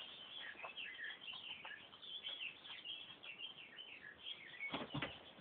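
Faint, quick chirping and twittering of small birds: many short high calls, some sliding in pitch. A brief louder noise comes near the end.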